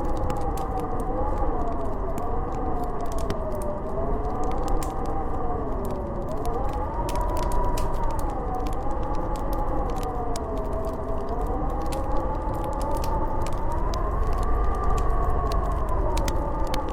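Howling snowstorm wind, a wavering tone that slowly rises and falls over a low rumble, with a wood fire in a fireplace crackling in scattered sharp pops.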